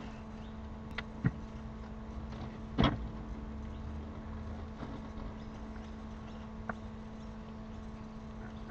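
Steady electrical hum made of several fixed tones, broken by a few sharp knocks, the loudest about three seconds in and a fainter one near the end.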